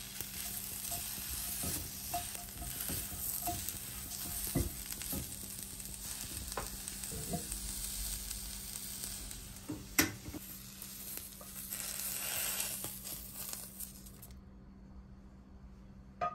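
Torn cabbage pieces sizzling as they dry in a nonstick pan without oil, stirred with tongs, with scattered light clicks and a sharp knock about ten seconds in. The sizzle stops about two seconds before the end, followed by a short click.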